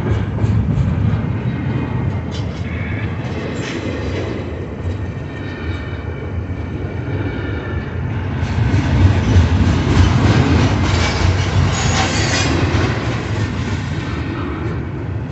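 CSX double-stack container train's well cars rolling past: a steady rumble of steel wheels on rail, with a few sharp clanks.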